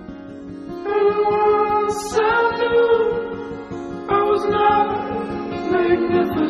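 Background music: a singing voice in held phrases over a soft accompaniment, the voice coming in about a second in.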